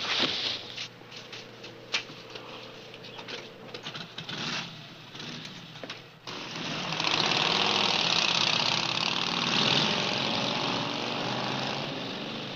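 A brief scuffle with scattered sharp knocks and thuds. About six seconds in, motorcycle engines start suddenly and run loudly.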